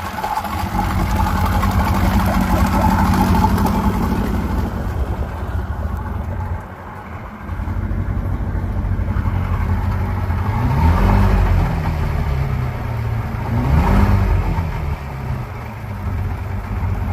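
A 1991 Mariner 115 hp inline four-cylinder oil-injected two-stroke outboard running. About seven seconds in it briefly drops in level, then it is twice revved up and let back down.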